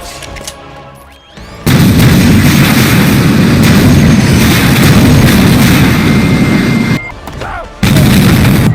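Loud, booming weapon sound effects: a dense, continuous blast of fire that starts abruptly nearly two seconds in, breaks off briefly about seven seconds in, then starts again.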